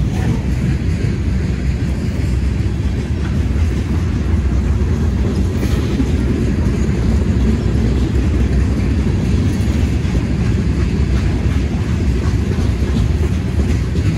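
Freight train's covered hopper cars rolling past close by: a steady low rumble of steel wheels on rail.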